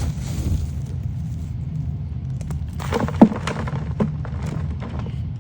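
Hands breaking up and tossing clumps of soil, with one sharp thump about three seconds in and a smaller knock a second later, over a steady low rumble.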